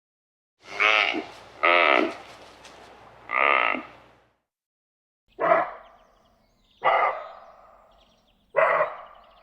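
Deer calling: six short, pitched calls of about half a second each, in two groups of three.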